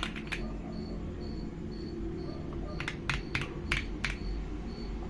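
A few keystrokes on the AULA F75 MAX mechanical keyboard with pre-lubed switches: a couple right at the start, then a quick run of about six between three and four seconds in. Under them a steady low hum and a faint high pip repeating about twice a second.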